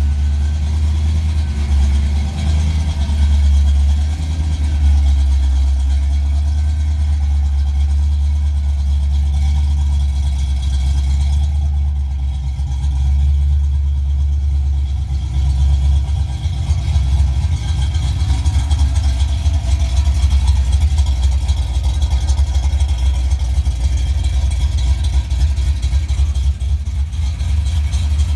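A 1988 Ford Mustang GT's 5.0 L (302) small-block V8 idling steadily, heard first from inside the cabin and then from outside the car. About halfway through, the low exhaust note turns choppier and a little louder.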